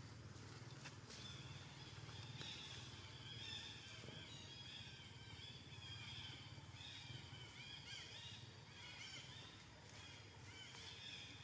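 Faint high-pitched animal calls, many short arched chirps repeated in quick runs from a couple of seconds in until near the end, over a low steady hum.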